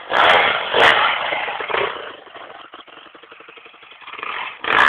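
Off-road dirt bike engine revving hard as the bike rides close by, dropping back to a quieter run for a couple of seconds in the middle, then revving loud again near the end.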